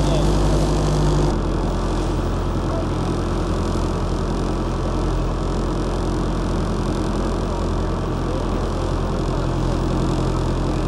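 A steady low engine drone. About a second in it changes abruptly to a slightly quieter drone of a different pitch, which then runs on unchanged.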